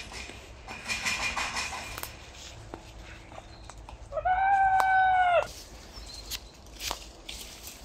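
A single drawn-out animal call, about a second long, held on one steady pitch after a quick rise and dropping away at the end, about four seconds in. Fainter scattered rustles and clicks are around it.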